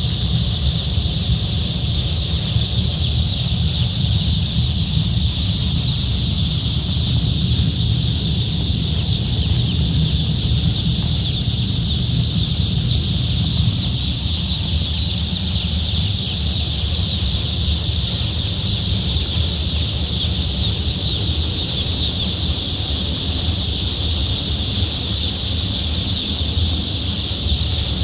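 A large flock of day-old broiler chicks peeping all at once in a dense, steady high chorus, over a steady low rumble.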